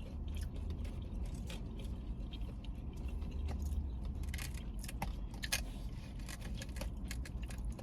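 A steady low car-interior rumble under scattered light clicks and rustles of takeout containers and utensils being handled.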